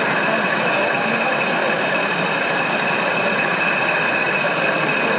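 Steady idling engine sound of an RC model fire truck, with a constant high hum over it and a faint wavering high whine that stops about four seconds in.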